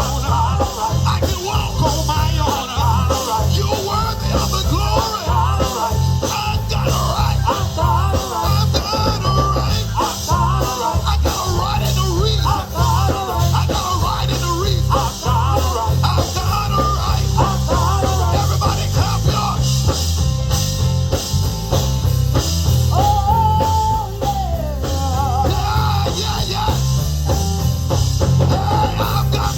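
Organ, drum kit and bass guitar playing Pentecostal gospel music together, loud and continuous.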